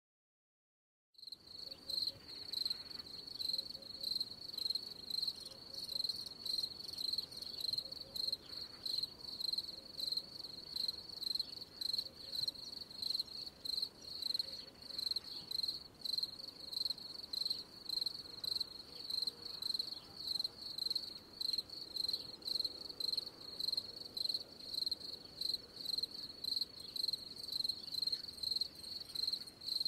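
Night insects chirping, a high-pitched pulsing chirp repeating evenly at a few chirps a second, starting about a second in.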